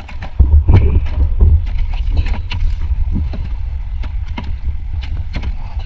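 Water sloshing around a floating plastic tub of blue crabs, heard as a low rumble on the microphone that is loudest from about half a second to a second and a half in. Scattered sharp clicks and knocks come from the tub being handled.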